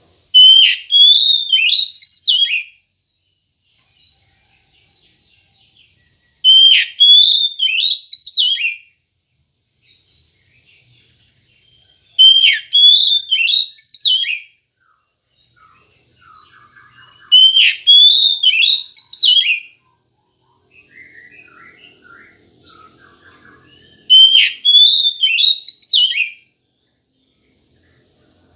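Oriental magpie-robin (kacer) singing: the same loud, high whistled phrase five times, about every six seconds, with soft twittering in the gaps.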